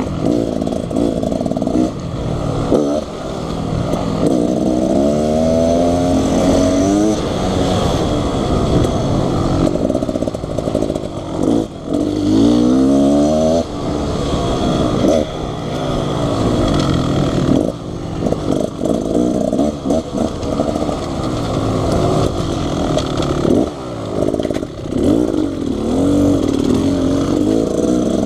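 Two-stroke dirt bike engine running hard on a trail, revving up and dropping back again and again as the throttle is worked.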